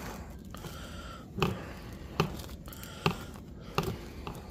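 A cloth wiping a plastic bird-cage tray, with about five short knocks as the tray is handled.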